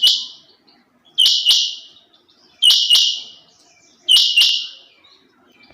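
Female rain quail calling: a sharp, high double note repeated four times at an even pace, about one and a half seconds apart.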